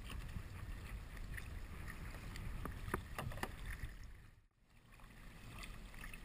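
Sea kayak being paddled on calm water: paddle strokes with small splashes, over a low rumble of wind on the microphone. The sound drops out briefly about four and a half seconds in, then returns.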